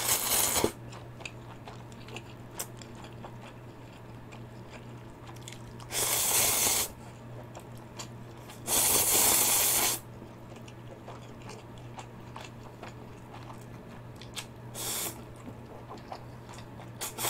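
Instant ramyun noodles being slurped and eaten: five loud slurps spread through, each up to about a second long, with soft chewing and mouth clicks in between.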